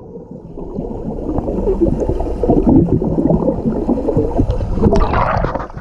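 Muffled underwater bubbling and gurgling in a swimming pool, heard through a submerged GoPro: air bubbles and swimmers churning the water, with the sound dull and lacking highs.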